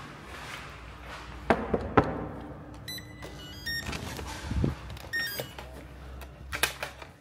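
Clicks, knocks and a thud of doors being handled, with two short runs of electronic beeps in between.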